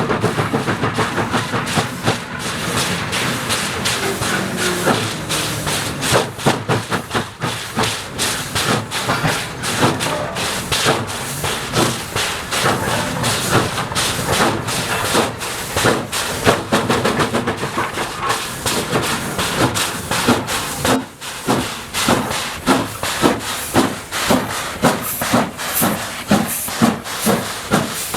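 JS-class 2-8-2 steam locomotive working, with a steady beat of exhaust chuffs over hissing steam. The beats grow sharper and more evenly spaced in the last few seconds.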